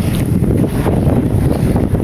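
Sea breeze buffeting the microphone: a loud, uneven low rumble.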